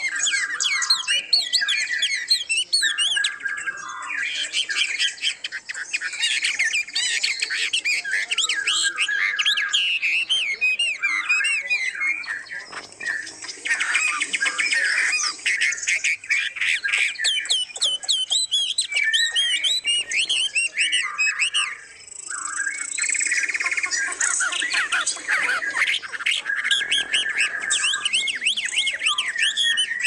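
Many caged songbirds chirping, squawking and singing at once, a dense chorus of overlapping calls and warbling phrases, with a couple of brief lulls.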